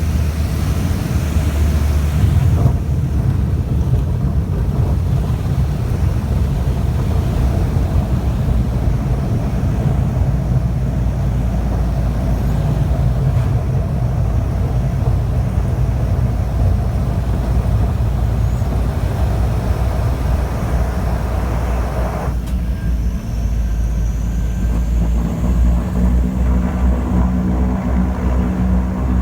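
de Havilland Canada Twin Otter turboprop landing: steady low engine and propeller noise. About 22 seconds in, the sound changes abruptly and settles into a steadier pitched hum.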